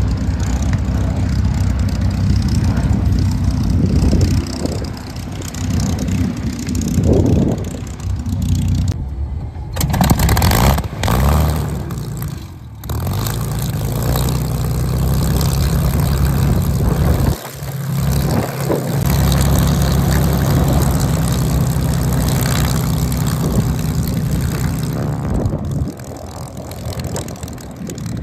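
WWII fighter piston aero engines: a P-51 Mustang's engine running as it taxis, then a Spitfire's V12 engine starting up and running steadily.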